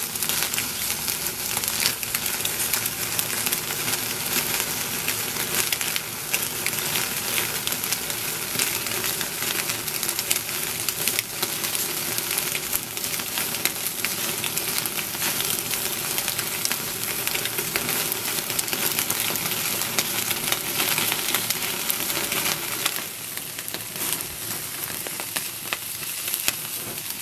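Chicken pieces sizzling on a wire grill over a charcoal fire, a steady hiss with many small pops and crackles. It gets a little quieter near the end.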